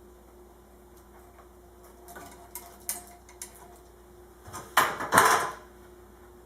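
Small clicks and handling noises of hand tools and fan wiring being worked, then a louder rasping burst about five seconds in.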